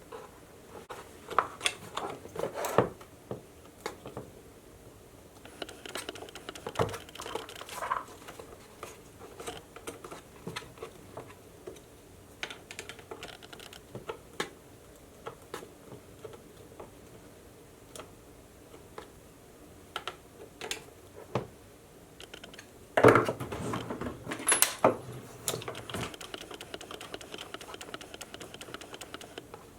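Scattered light clicks, ticks and scrapes of a Phillips screwdriver turning screws out of an airsoft spring sniper rifle, with a louder burst of knocks and clatter about 23 seconds in.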